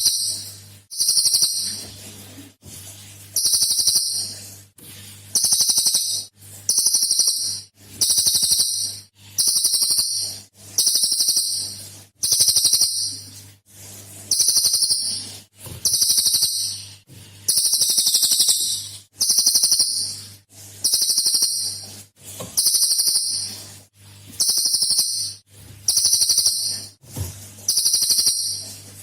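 Cililin songbird repeating one loud, high-pitched rapid trill phrase, its 'tembakan' (shot) call, about once every second and a bit, each phrase lasting under a second with short gaps between.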